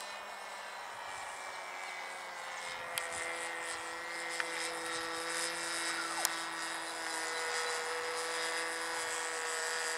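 An RC trainer plane's glow engine running steadily in flight overhead, a continuous buzz whose pitch barely changes and that grows slightly louder. A few sharp clicks sound about three, four and six seconds in.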